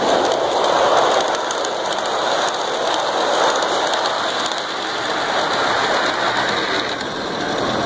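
Large-scale model steam train with passenger coaches rolling past close by, its wheels making a steady rumbling clatter on the track. It is loudest at the start as the locomotive passes, then eases as the coaches go by and the train moves off round the curve.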